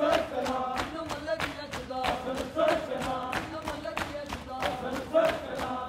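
Crowd of bare-chested men doing matam, slapping their chests in unison about three times a second, over male voices chanting a mourning noha.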